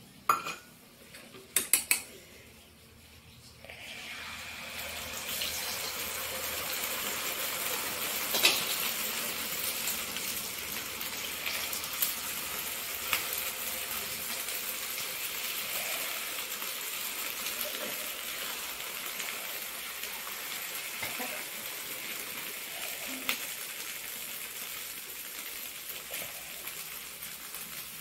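A few sharp metal clicks, then from about four seconds in a steady sizzle of an egg flatbread frying in oil in a pan on a gas stove, with occasional taps of the spatula against the pan.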